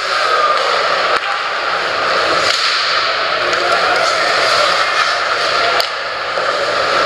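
Ice hockey arena ambience during play: a steady, noisy hiss of rink and crowd sound, with the level shifting abruptly about a second in and again near the end.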